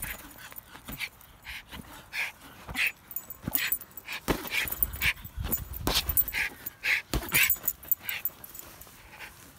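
Schipperke dog making short, high whimpers and yips over and over as it plays with a large ball, several within a second at times.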